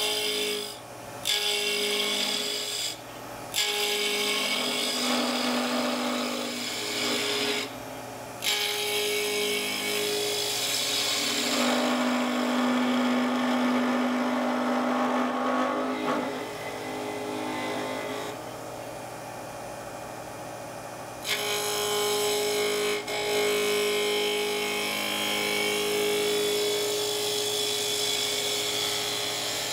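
A spindle gouge cutting a round-over on the end of a spinning alder blank on a wood lathe, peeling off curly shavings with a rasping hiss. The cut goes in several passes, stopping briefly whenever the tool leaves the wood, over the lathe's steady hum.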